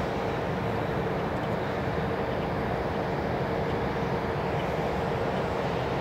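ACA Banshee outdoor warning siren sounding one steady, unwavering tone during a siren test, over a rough low rumble.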